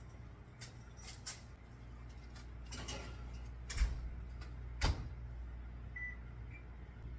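Oven door opened and a foil-covered baking dish set inside, with light clicks and knocks. The door thuds shut about five seconds in, followed by two short beeps from the oven's control panel.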